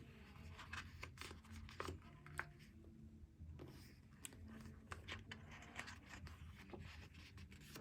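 Faint handling noise from paper pages: scattered light ticks and rustles as a photo book's pages are touched and turned.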